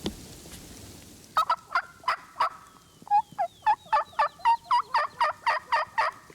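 A run of turkey yelps: about five notes, then after a short pause a faster, steady string of about a dozen, each note breaking downward in pitch. A short click comes right at the start.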